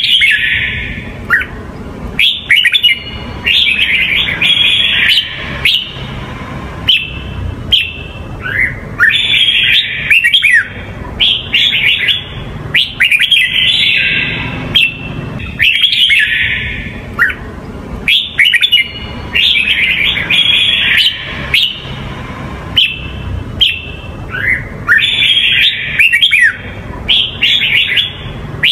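Red-whiskered bulbul singing: short phrases of quick, bright whistled notes repeated every second or two, over a steady low hum.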